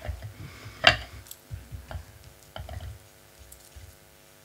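Light handling noise as a glass bottle is held and brushed over a china dish. There are small taps and ticks, one sharper click about a second in, and dull knocks against the table.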